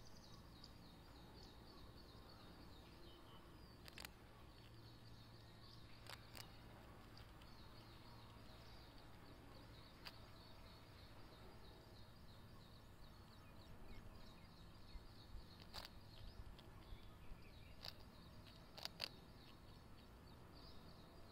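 Faint outdoor ambience with small birds chirping in rapid high runs, and a few sharp clicks scattered through.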